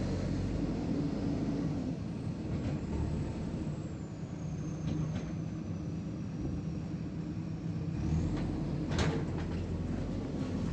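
JCB 3DX backhoe loader's diesel engine running steadily under work, with a faint high whine that slowly falls in pitch and a sharp knock about nine seconds in.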